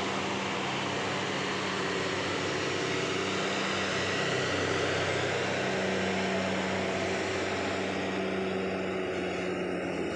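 Tour bus diesel engine running steadily, a low hum under a hiss of engine and road noise; the hiss thins out near the end.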